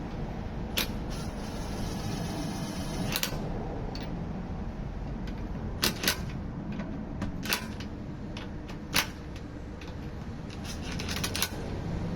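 A series of sharp clicks and knocks at irregular intervals, with two close together about six seconds in and a quick cluster near the end, over a steady low hum.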